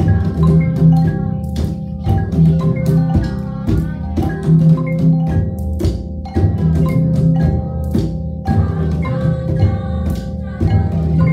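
Percussion music played on drums, timpani among them, and xylophone-like mallet instruments: a run of struck notes over ringing low drum tones.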